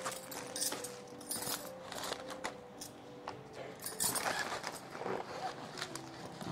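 Soft background music with faint held notes, over the rustle of plastic grocery packets and light clinks and knocks as items are taken out of a carrier bag and set on a counter.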